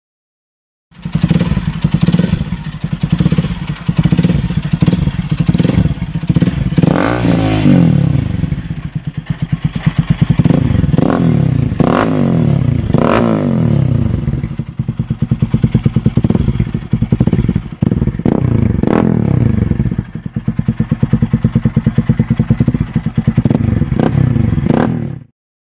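Bajaj Rouser 200NS single-cylinder engine running through a loud aftermarket muffler, idling with a lumpy beat and blipped sharply several times, each rev rising and falling quickly. The sound starts and stops abruptly at both ends.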